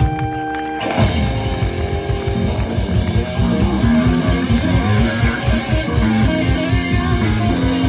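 Live rock band playing amplified electric guitar, electric bass and drum kit. A chord rings on its own for about the first second, then the full band comes in with a steady drum beat and a repeating bass line.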